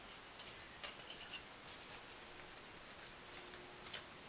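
Thin laser-cut Baltic birch plywood pieces being handled and slotted together by hand: light, scattered clicks and taps of wood on wood, with a sharper click about a second in and another near the end.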